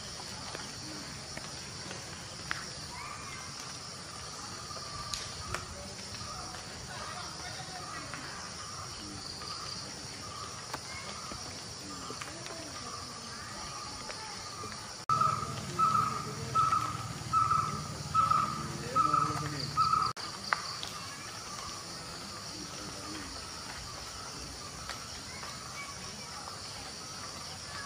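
Forest ambience: a steady high drone of insects, with a short call repeating about every half second or so. From about halfway in, the repeated calls become much louder for about five seconds over a low rumble, starting and stopping abruptly.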